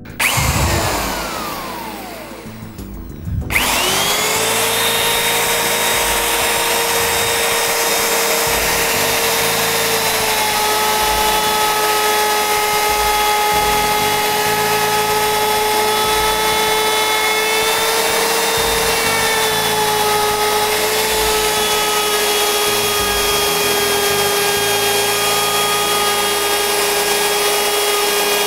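Bosch plunge router with a bearing-guided edge-profiling bit spinning up about three and a half seconds in, then running at a steady high-pitched whine that dips slightly now and then as the bit cuts along the edge of a wooden board. Before it, a short burst falls away in pitch over about two seconds.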